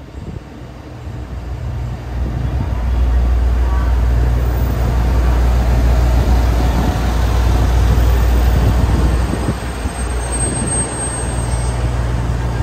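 Train running on the rails with a low, steady rumble. It grows louder over the first few seconds, then holds.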